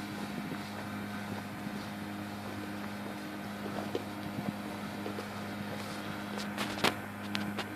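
Rotax 582 two-stroke twin of a Fly Synthesis Storch ultralight running steadily at low power, an even hum. A few sharp clicks come near the end.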